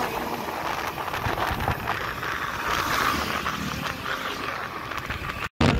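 Wind rushing over the microphone with engine and road noise, riding a motorbike in traffic. The sound drops out abruptly for an instant near the end.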